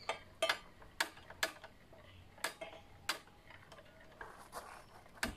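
Metal spoon clicking against a ceramic bowl while stirring a thick milk-powder paste: faint, irregular sharp clicks, with a louder knock near the end.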